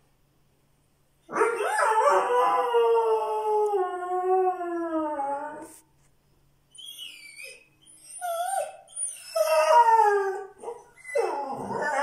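Irish Red and White Setter howling: one long howl starting about a second in, sagging a little in pitch before it stops, followed after a pause by shorter broken, falling howls and whines.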